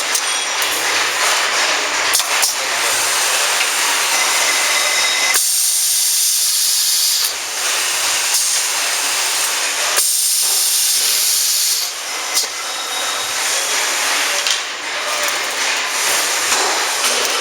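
Steady, loud hissing noise from a CNC wire bending machine at work. The tone shifts abruptly about five seconds in, and again around ten and twelve seconds, as the machine changes motion.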